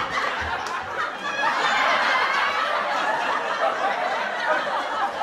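Many voices chattering and laughing over one another in a crowd.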